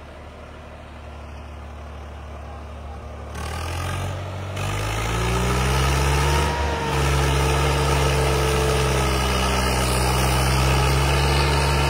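Swaraj 855 FE tractor's three-cylinder diesel engine pulling a heavily loaded trolley. It runs low at first, then revs up over a couple of seconds about three and a half seconds in and holds at high revs under the load.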